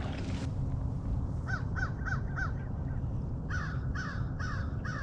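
A crow cawing in two runs of short, harsh caws, about three a second: four caws a second and a half in, then another four starting about three and a half seconds in, over a steady low rumble.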